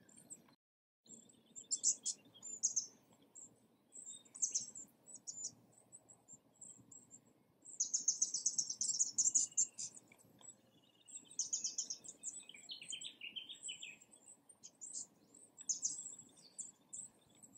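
Wild birds chirping and calling in short bursts of high notes, with a dense, fast run of chirps about eight seconds in and a lower trill a few seconds later.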